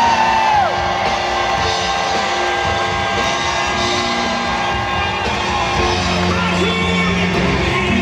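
Loud music playing over a hockey arena's sound system, mixed with crowd noise, cheering and whoops from the stands.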